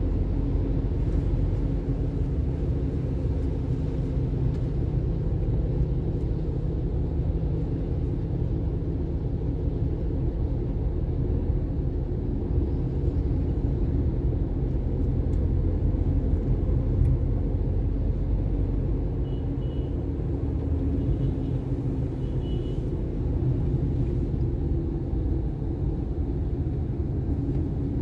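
Steady low rumble of a vehicle travelling along a road: engine, tyre and wind noise with no let-up.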